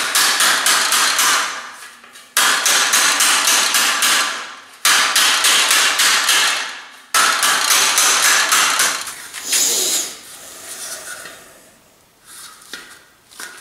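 Hammer beating the edge of a thin sheet-metal dish over an anvil, in four runs of quick metallic blows of about two seconds each, with a few fainter taps near the end. The sheet is being hammered into a steeper, more funnel-like shape.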